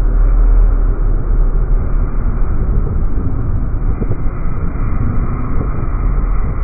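A container freight train rolling past, heard as a deep, steady rumble of wheels on rail, slowed down by slow-motion recording.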